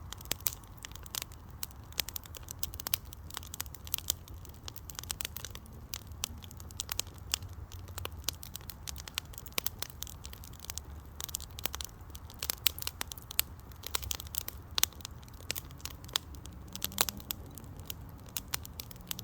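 Wood fire in a firepit crackling, with dense irregular pops and snaps over a low steady rumble of the flames.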